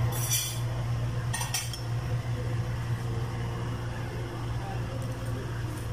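Metal spoon and fork clinking and scraping against a plate of rice, with a couple of sharp clinks in the first two seconds, over a steady low hum.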